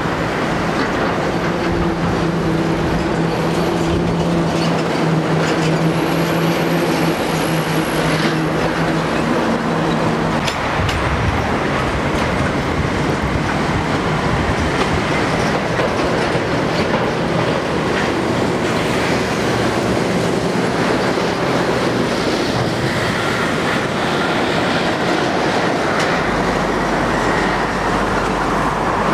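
Heavy diesel lorries and container trucks passing on a multi-lane road: a steady wash of engine and tyre noise. An engine hum holds steady for about the first ten seconds.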